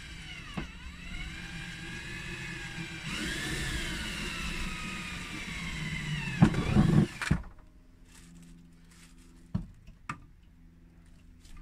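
DeWalt 18V cordless drill running a 2 mm bit, drilling a pilot hole through a compressor fridge's side wall for its fixing screws. The motor whine dips and recovers as the bit bites, swells into a louder burst, then cuts off about seven seconds in; two light clicks follow as the drill is moved to the next hole.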